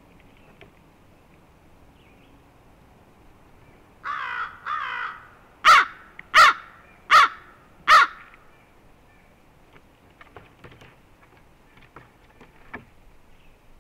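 Crow cawing: two drawn-out harsh caws, then four short, loud caws evenly spaced, a little under a second apart.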